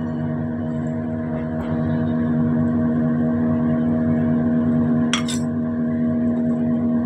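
Steady droning hum, with a short clatter of a wooden spatula against a steel kadai of rice about five seconds in.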